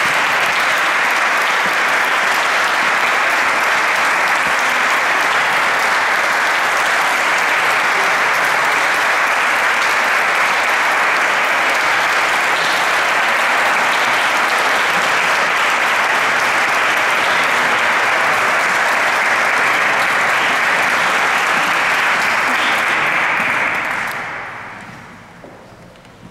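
Crowd applauding steadily with dense clapping, dying away near the end.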